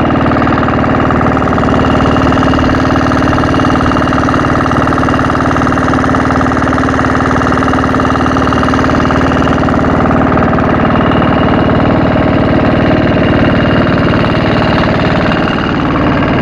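Wooden boat's engine running steadily underway, a loud even drone that holds one pitch, dipping briefly near the end.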